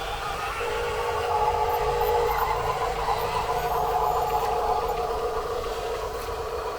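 Small electric motors and gearboxes of radio-controlled toy construction trucks whining steadily, the pitch shifting slightly as they work.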